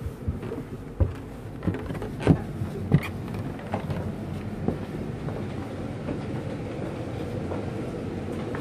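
Footsteps climbing a short carpeted stairway: about seven dull thumps and knocks, roughly every two-thirds of a second over the first five seconds, over a steady low background noise that continues after them.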